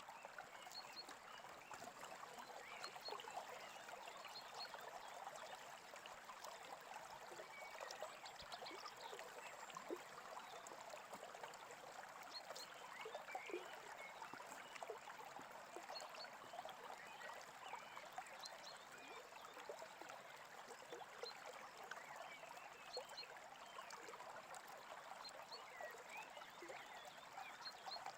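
Small brook trickling and babbling steadily, faint, with short bird chirps scattered over it.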